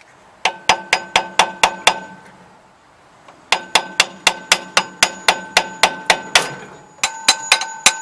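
Hammer blows on a rusted, seized water pump on an International Harvester bus engine, knocking it loose from the block. Three quick runs of strikes, about four a second, each blow with a short metallic ring; the middle run is the longest.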